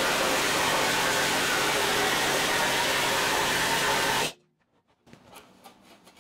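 Planishing hammer running steadily as a sheet-steel sill flange is fed through it against a flat lower die, flattening a bend without stretching the metal. It stops abruptly about four seconds in, leaving faint clicks of the panel being handled.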